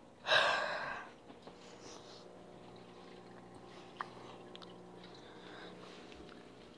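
A person's breath, loud and sudden, just after the start and fading within about a second. After it comes a faint steady hum, with a single click about four seconds in.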